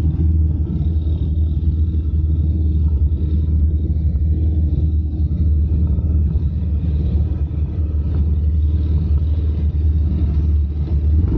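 All-terrain vehicle engine running steadily with a loud, continuous low rumble.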